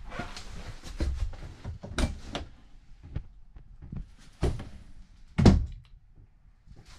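A run of knocks and thuds, several of them sharp, the loudest about three quarters of the way through.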